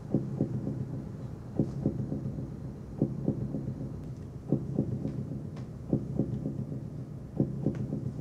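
Low double thumps repeating evenly about every one and a half seconds, heartbeat-like, over a steady low drone.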